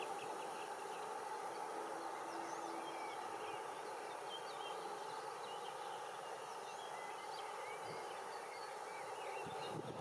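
Small songbirds chirping and singing, many short high calls scattered throughout, over a steady rushing background noise.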